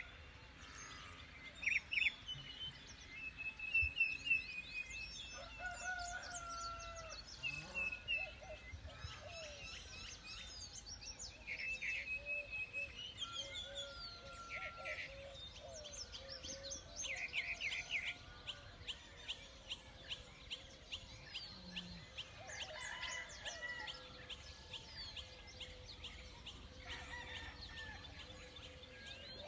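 Farmyard birds: a rooster crowing and chickens calling, with small birds chirping and trilling throughout, including a fast trill about halfway through.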